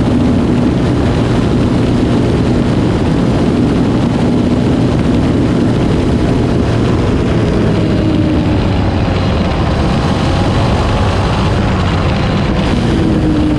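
Yamaha Raptor 700R ATV's single-cylinder four-stroke engine running steadily at high road speed, around 120 km/h, mixed with loud wind rush. The engine pitch shifts slightly after about 8 seconds as the speed eases off a little.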